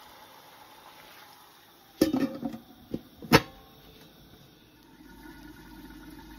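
Metal pot lid clattering onto a large metal cooking pot: a few sharp metallic knocks with a short ring between about two and three and a half seconds in, the last the loudest, over a faint steady hiss.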